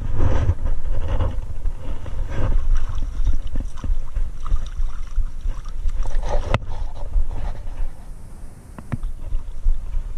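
Wind rumbling on a chest-mounted camera's microphone, with clothing rubbing and handling noise against it; a sharp click about six and a half seconds in.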